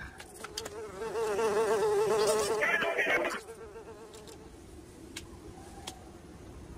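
An insect-like buzz with a wavering pitch, lasting about two and a half seconds and stopping a little after three seconds in, followed by a few faint ticks.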